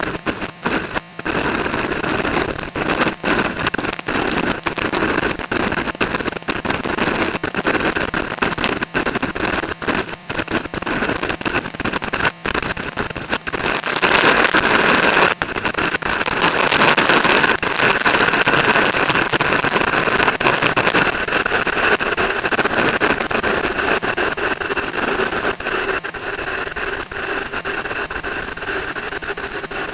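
Strong wind buffeting the microphone: a harsh rushing noise full of crackles and dropouts, over a running motorcycle engine. It grows loudest about halfway through and eases off toward the end.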